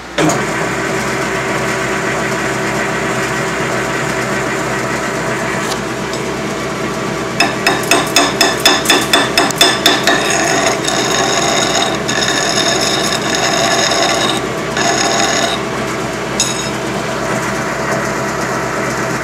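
Metal lathe running steadily, turning the freshly welded shaft; it starts abruptly right at the beginning. About seven seconds in comes a quick even run of knocks, about four a second, for a couple of seconds, then a higher ringing squeal while a tool is held against the spinning weld.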